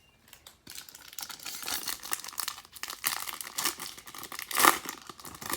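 Foil wrapper of a 2020 Topps Series 2 baseball card pack crinkling as it is torn open and handled, a dense run of crackles that is loudest about 4.7 seconds in.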